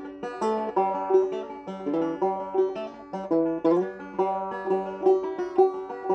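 Solo banjo playing a fast reel: a quick, even run of plucked notes with one note recurring throughout.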